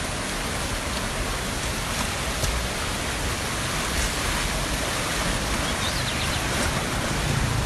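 Fast-flowing floodwater rushing, a steady even hiss with no let-up.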